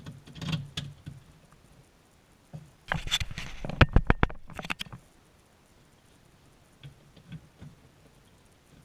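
A run of rapid clicks and knocks about three to five seconds in, with scattered softer taps before and after.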